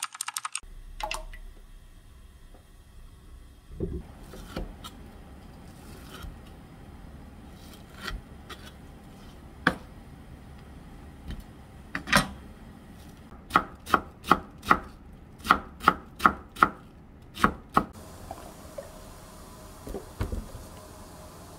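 Kitchen knife chopping sheets of fish cake on a wooden cutting board. A few scattered knocks come first, then a run of about ten sharp chops, roughly two a second.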